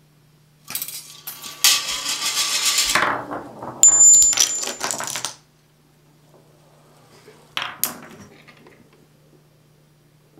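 Rube Goldberg chain reaction running: a marble rolling down a plastic track and dominoes toppling, a rattling, clicking clatter lasting about four and a half seconds with a brief high metallic ring near its loudest point. Two sharp knocks follow a couple of seconds later.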